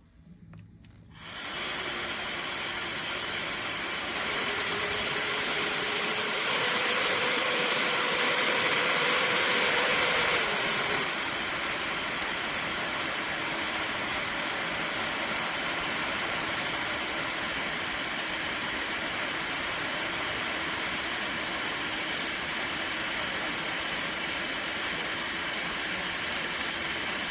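SnugLuv 160,000 RPM high-speed hair dryer switching on about a second in and running with a steady airy whoosh. It gets louder from about four seconds in until about ten seconds in, then runs steadily at a lower level.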